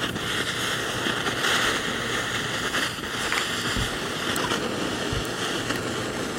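Sea waves washing on the shore with wind across the microphone, a steady rushing that swells and eases.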